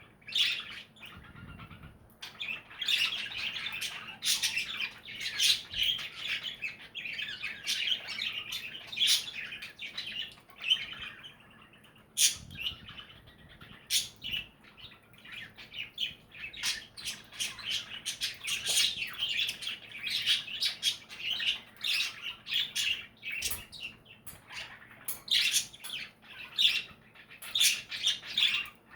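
Several pet budgies (budgerigars) chirping: a busy, unbroken stream of short high chirps and squawks, with only brief lulls.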